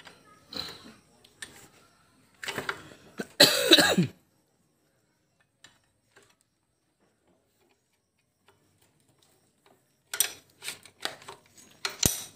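Light metallic clicks and knocks of hand tools working on a stopped diesel engine, with a loud cough about three and a half seconds in. After several seconds of near silence a run of sharp clicks and knocks starts again near the end.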